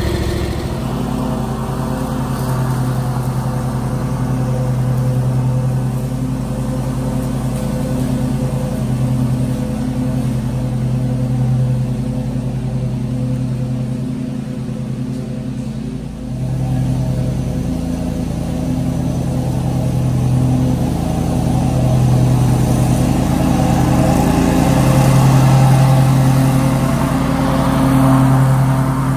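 Engine of a Ferris hydrostatic walk-behind commercial lawn mower running steadily under mowing load. The sound dips briefly about halfway through and grows louder near the end.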